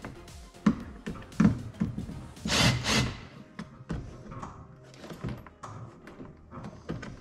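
Irregular knocks and thunks, with a longer noisy burst about two and a half seconds in and lighter clicks after it, over faint background music.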